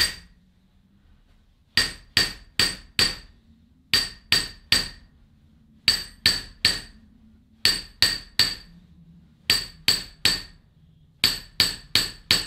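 Small peen hammer tapping lightly on the rim of a steel final drive ring gear, working around it to knock the press-fit gear off the differential case. The taps come in quick bursts of three or four, every two seconds or so, and each one rings like struck steel.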